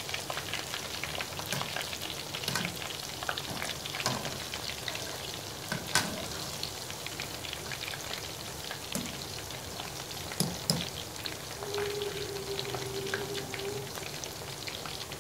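Battered chicken pakora deep-frying in hot oil in a wok: a steady sizzle with scattered sharp pops and clicks, the pieces stirred now and then with a slotted spoon.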